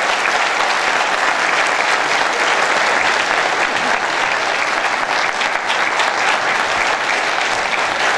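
Audience applauding: a dense, steady clapping from a large crowd in a hall, with a few sharper individual claps standing out a little after halfway.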